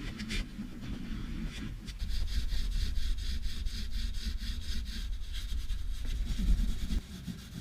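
Abrasive rubbed by hand over the bus's steel bodywork in quick back-and-forth strokes, rubbing down surface rust on bare metal. The strokes start about two seconds in and stop shortly before the end.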